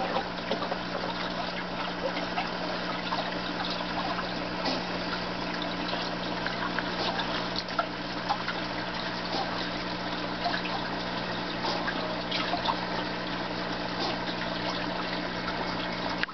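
Aquarium water circulating: a steady trickling and splashing of moving water with many small crackles, over a steady low hum.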